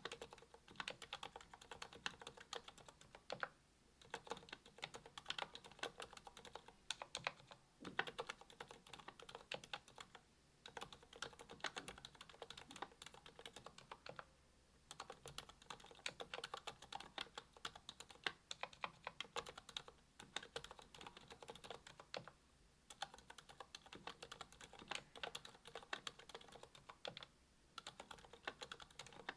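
Typing on a Monstargear XO V2 aluminium mechanical keyboard with ZealPC Healios V2 silent linear switches (67 g), a brass plate and GMK keycaps: a quiet, rapid run of muted keystrokes, broken by short pauses every few seconds.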